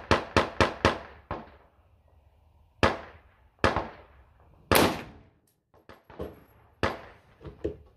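Rifle shots on a shooting range: a .308 AR-10 firing single sharp reports about a second apart, the loudest a little before five seconds in, with fainter shots between.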